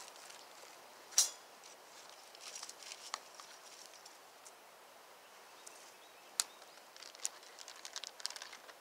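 Small campfire with a wire grill grate being set over it: a quiet background broken by a few sharp clicks and knocks, the loudest about a second in, and a run of small clicks near the end.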